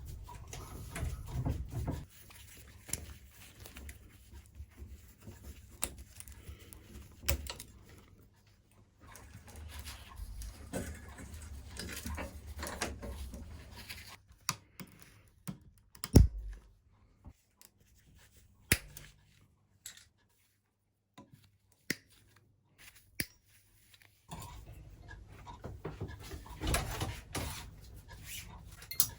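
Workshop handling noise as a BMX bicycle chain is split and taken off: scattered metallic clicks, rattles and taps, with one sharp knock about sixteen seconds in and a few near-silent seconds after it.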